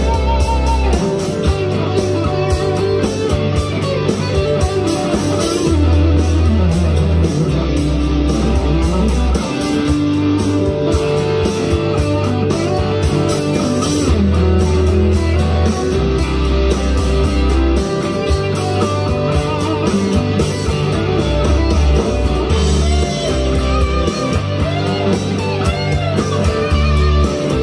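Electric guitar, a Firefly FFLPS Les Paul-style copy, played along with a southern rock backing track with bass and drums.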